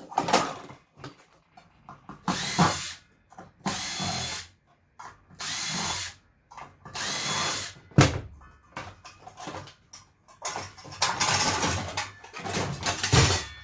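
Cordless drill-driver backing out screws in short runs of about a second each, four in a row, then two longer runs near the end, with knocks and rattles of metal parts being handled in between.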